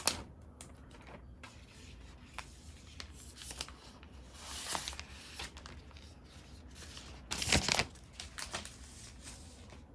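Protective paper sheet being peeled and pulled off a keyboard case, with scattered clicks and taps between stretches of paper rustling; the loudest rustles come about halfway through and again about seven and a half seconds in.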